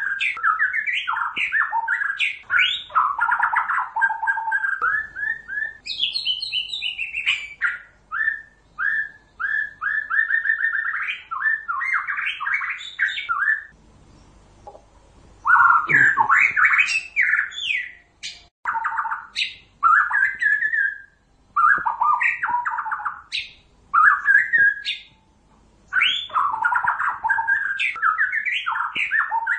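White-rumped shama singing: a long run of varied, rich whistled phrases and rapid repeated-note trills. Short gaps break it up, with a longer pause about halfway through.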